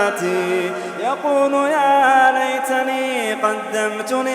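A man chanting the Quran in a slow melodic recitation style, drawing out long held notes with a rising glide about a second in.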